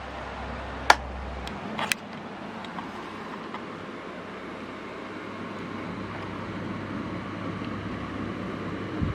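Sekai DFN 1202 12-inch table fan running with a steady rush of air. A sharp click comes about a second in and another near two seconds as its switch is worked, a low hum drops away, and the fan's noise then slowly grows louder as it picks up speed. A knock comes just before the end.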